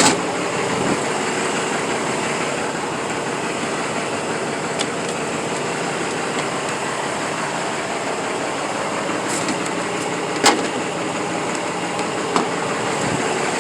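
Truck engine idling steadily, with a few sharp clicks or knocks near the start and near the end.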